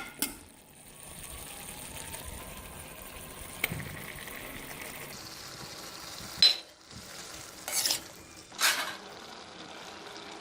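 Chicken frying in oil and melting butter in a karahi, sizzling steadily, with a few clinks and short scrapes of a spoon stirring it in the second half.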